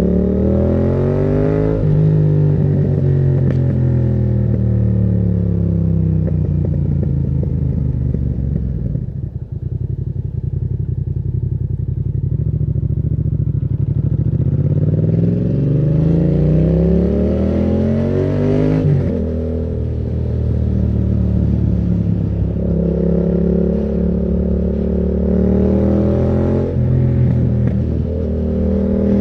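Yamaha MT-07's parallel-twin engine through a Termignoni aftermarket exhaust, pulling hard and then easing off several times. The pitch climbs at the start, falls away, holds steady, then climbs again and drops suddenly about two-thirds of the way through, as at a gear change.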